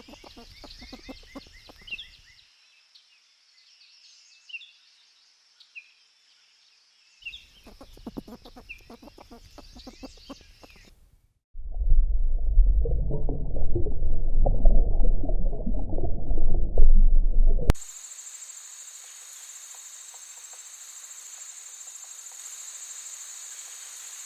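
Short bird chirps over a faint crackling, broken by a few seconds of near silence. Then a loud, low rumbling noise for about six seconds, which cuts off suddenly into a steady, high insect drone.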